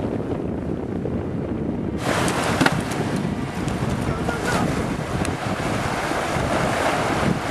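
Wind buffeting the microphone over shallow surf washing up the beach. About two seconds in the sound changes abruptly to a brighter, hissing wash of waves and wind.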